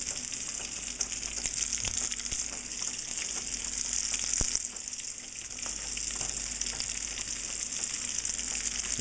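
Hot oil crackling and sizzling steadily as panko-breaded shrimp deep-fry in a pan, with a few faint clicks.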